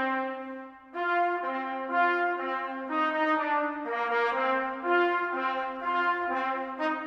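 Brass choir of trumpets and trombones playing held chords that change every half second to a second, with a short break about a second in.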